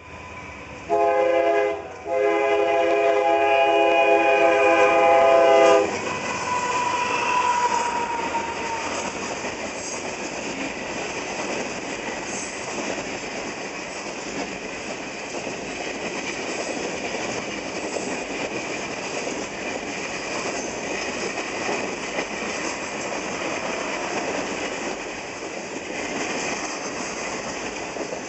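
A CSX diesel freight locomotive's air horn sounds a short blast and then a long one. After the horn stops, a long string of refrigerated boxcars rolls past with a steady rumble and the clickety-clack of wheels over the rails.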